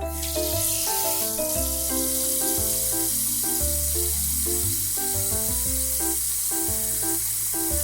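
A steady high hiss, like a sound effect of something frying, begins at the start and runs on, over bouncy cartoon background music with a pulsing bass line.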